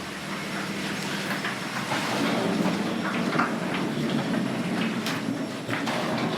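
Toyota Mark II's 1G-FE inline-six running: a steady low hum with scattered light clicks.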